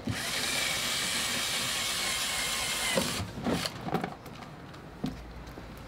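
Cordless drill boring a hole through the wall of a plastic oil carton: a steady, high whir that stops about three seconds in, followed by a few light knocks and clicks.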